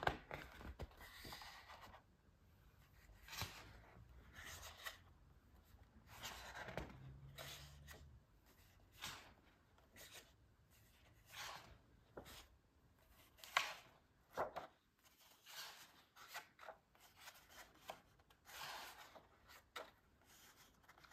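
Large paper booklet pages being turned one after another, faint papery rustles and flips about once a second, with one sharper snap of a page about two-thirds of the way through.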